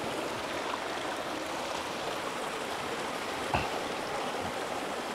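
Mountain creek water running over rocks, a steady rushing, with a single small knock about three and a half seconds in.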